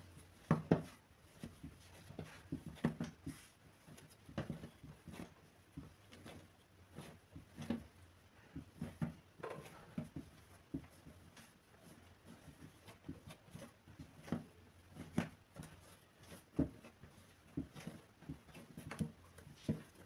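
Dough being kneaded by hand on a floured worktop: irregular dull thumps and pats, one or two a second, as it is pressed, folded and turned.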